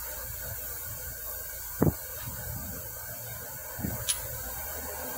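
Steady hiss and low hum of machine-shop background noise, with two dull thumps about two seconds apart and a faint tick just after the second.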